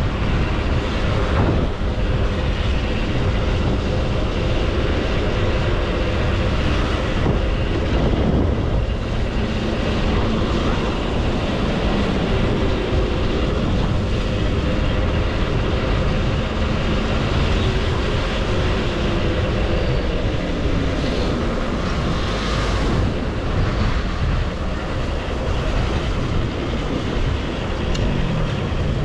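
Motorcycle engine running under way, heard from the bike, with road and wind noise over it; the engine note slides down and back up a few times as the rider eases off and on the throttle.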